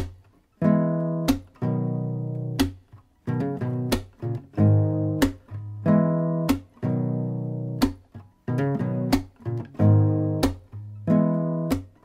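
Closing theme music on acoustic guitar: chords struck sharply about every second and a quarter, each left to ring.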